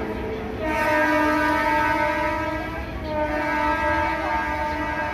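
Train horn sounding in long steady blasts over the low rumble of the moving train, breaking off briefly just under a second in and again about three seconds in.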